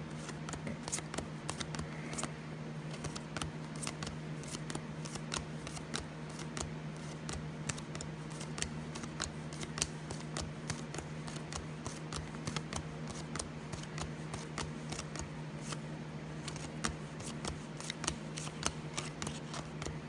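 Trading cards being flipped quickly through one after another in the hand, each card slid off the stack with a small click or snap, in an irregular run of a few a second. A low steady hum runs underneath.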